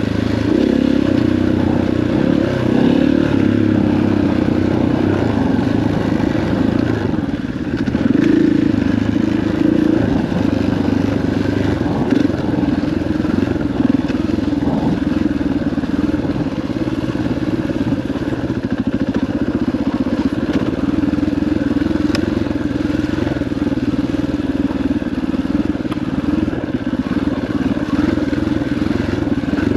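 KTM 500 EXC dirt bike's single-cylinder four-stroke engine running at a steady, moderate throttle on a dirt trail, with a few light clattering knocks.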